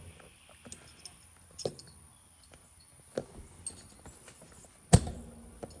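Scattered small clicks and knocks of hardware and tools being handled while fitting a mirror, with one sharp knock about five seconds in.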